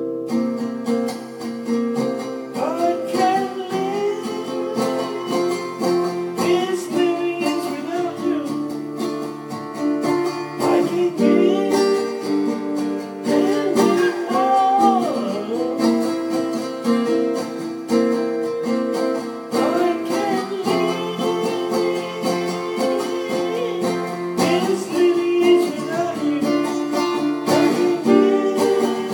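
Acoustic guitar strummed in a steady ballad accompaniment, played through a Roland KC-110 amplifier, with a voice singing a wavering melody over it at times.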